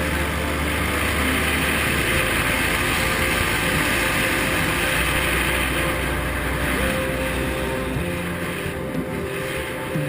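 A motor running steadily under a broad rushing hiss, with its low hum shifting in pitch a few times.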